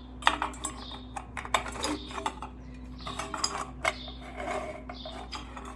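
Hard parts of a ceiling fan's LED light kit being handled and fitted together: an irregular run of sharp clicks and clinks.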